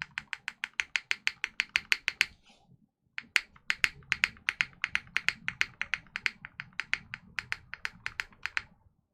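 Fast typing on a custom Kohaku 65% mechanical keyboard with lubed and filmed Cherry MX Black linear switches, a gasket-mounted polycarbonate plate and GMK keycaps: a quick, even run of keystrokes. The typing breaks off briefly about two and a half seconds in, resumes, and stops near the end.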